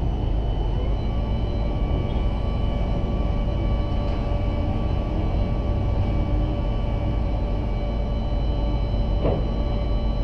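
Ship-to-shore gantry crane's boom hoist machinery running as the boom is raised. It gives a steady heavy mechanical rumble with several high whining tones that settle in about a second in.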